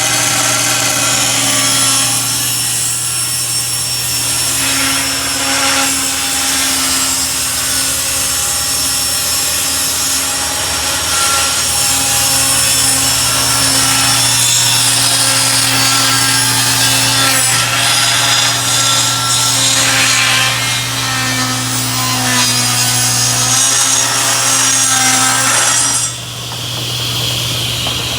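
Table saw running while its blade grinds slowly through wood, cutting a curve into the edge. The cutting noise drops away near the end, leaving the saw's motor running.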